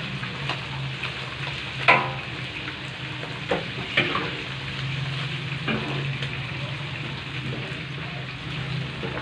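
Hot oil sizzling in a wok as pieces of fried chicken are lifted out with a wire skimmer and spatula. A few sharp metallic clinks of the utensils against the wok stand out, the loudest about two seconds in, over a steady low hum.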